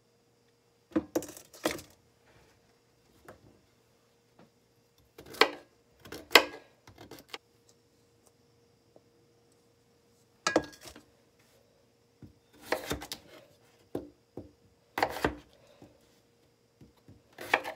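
Short separate bursts of knocking and clatter, about six groups with quiet gaps between: a chef's knife chopping potatoes on a plastic cutting board and cut pieces clinking into a stainless steel bowl.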